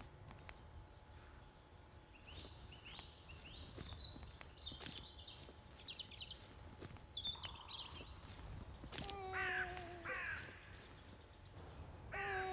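Woodland birds chirping, then from about nine seconds in a young child crying in pitched, sobbing wails that stop briefly and start again near the end.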